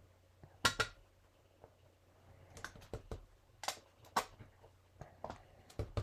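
A small hand stamp is dabbed onto paper, giving scattered light taps and clicks: two sharper ones just under a second in, then fainter irregular ticks.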